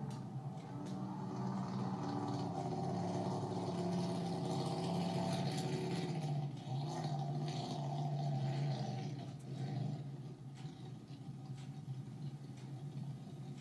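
Race boat's engine running at speed on a pass, a steady drone with a slightly wavering pitch that fades away about nine to ten seconds in.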